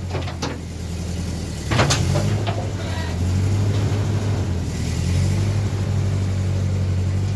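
An engine running steadily, with a few sharp knocks or clanks in the first two seconds, the loudest about two seconds in.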